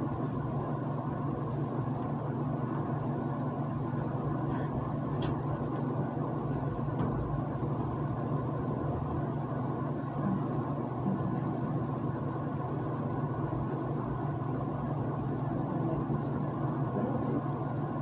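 A steady low hum with a faint noise haze above it, unchanging throughout.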